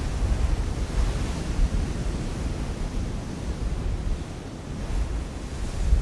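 Sea surf surging against rocky cliffs, a continuous wash that eases off about four seconds in and swells again near the end, with wind buffeting the microphone in a heavy low rumble.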